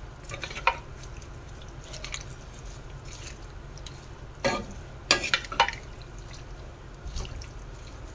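Wooden spatula stirring and tossing saucy vegetables in a stainless steel wok: soft wet scraping, with a few sharp knocks against the pan, the loudest cluster about five seconds in, over a steady low hum.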